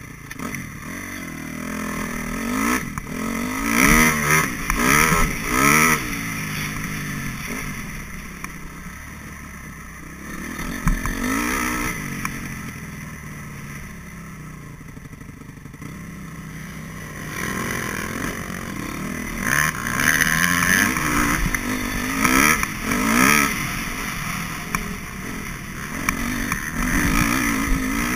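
Motocross bike engine heard from on board, revving up in repeated bursts of throttle with rising pitch as it rides a dirt track, easing off in between, clearly quieter around a third and a half of the way through.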